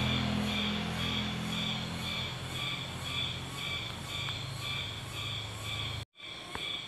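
A rhythmic chorus of forest wildlife calling, a high pulsing chirp that repeats about twice a second. Under it is a low steady hum that fades away about five seconds in. The sound cuts out for a moment near the end.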